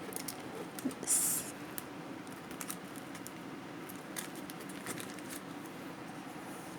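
Packaged merchandise being handled: scattered small clicks and taps of items being picked up and set down, with one brief louder rustle of packaging about a second in, over a steady low room hum.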